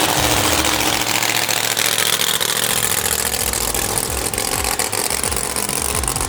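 Drag-racing car engine running loud and rough, its low pulses uneven.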